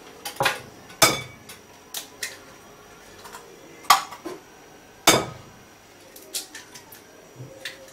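Eggs knocked on the rim of a glass mixing bowl to crack them open, and a wire whisk set down on the counter: a string of sharp clinks and taps. The loudest come about a second in, near four seconds and about five seconds in, followed by a few faint ticks.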